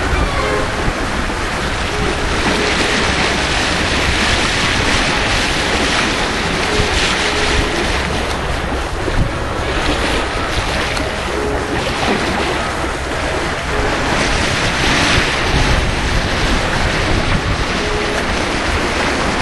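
Water rushing and splashing along the hull of a Beneteau First 265 sailboat under sail, with wind buffeting the microphone. The rush of water swells and fades every few seconds.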